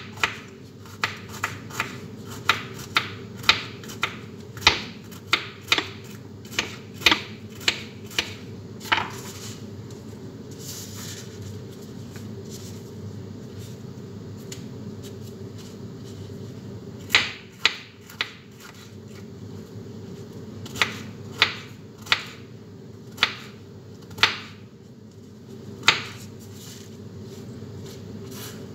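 Kitchen knife chopping vegetables, the blade knocking on a cutting board about twice a second. The chopping stops for several seconds and resumes in scattered strokes, over a steady hum.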